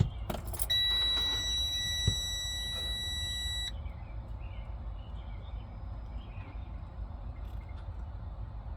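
Electronic warning buzzer in a truck cab sounding one steady high tone for about three seconds, then cutting off, just after a couple of clicks; a low steady rumble runs underneath.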